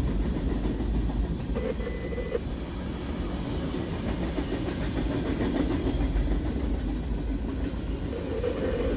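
Empty freight train of rubbish cars rolling past, a steady rumble of its wheels on the rails.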